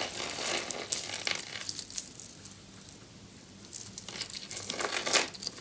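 Beaded jewelry being handled: small beads and chain clicking lightly against each other, with soft rustling. It comes in two spells, one at the start and another from about four to five seconds in.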